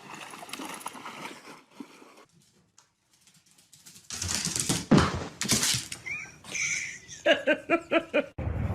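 A pet animal calling: a short gliding cry, then a quick run of about six short, pitched yelps, after some knocks and rustling.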